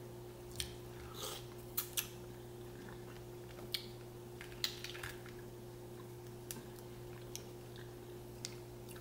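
Close-up eating sounds of a person eating mussels: quiet chewing broken by about nine short, sharp clicks and smacks at irregular intervals, over a steady low hum.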